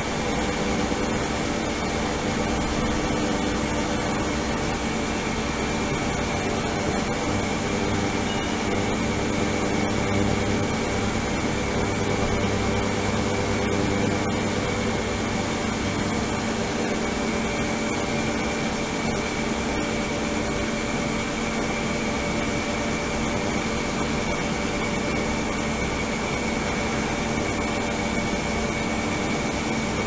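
Ultrasonic cleaning tank running with water circulating: a steady hiss and hum with a few faint, steady high tones.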